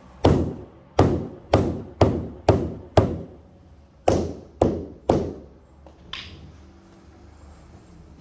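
A hammer striking nine times while a carpet runner is fixed to stair gripper rods: six blows about half a second apart, a short pause, then three more.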